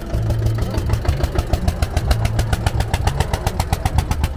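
Steyr 15 tractor's single-cylinder diesel engine running, a rapid even beat of firing strokes at about eight to nine a second.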